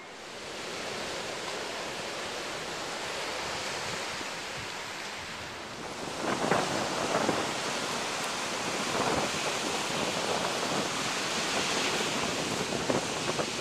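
Ocean surf washing over shoreline rocks, a steady rushing wash with uneven louder surges from about six seconds in.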